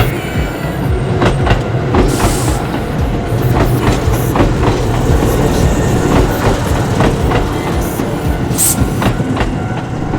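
Tobu Tojo Line electric train passing over the level crossing, its wheels clattering over the rail joints in a rapid, uneven run of knocks above a steady rumble.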